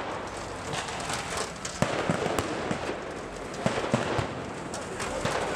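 Scattered sharp bangs and pops at uneven intervals over a steady noisy background, with the loudest ones about two seconds in and just before four seconds.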